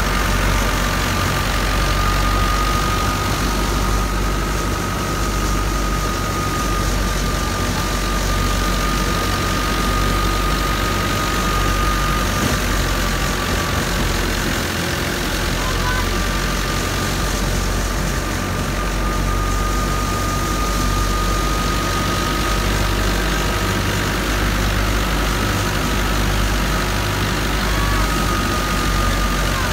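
640 tractor's diesel engine running steadily at a fixed throttle, driving a thresher through its PTO to thresh chickpeas, with a thin steady high whine that drops out for a couple of seconds about halfway through.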